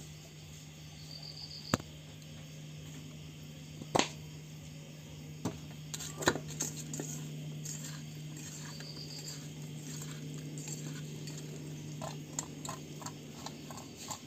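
A steady low hum with a few sharp knocks and clinks of kitchen utensils, and a quick run of small clicks near the end.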